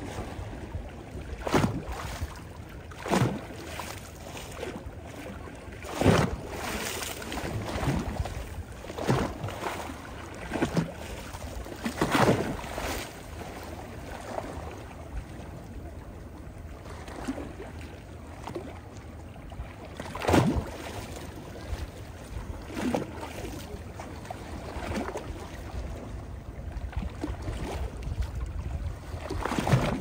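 Small waves of a calm sea lapping and splashing in shallow water over stones: a steady wash with irregular louder splashes every few seconds.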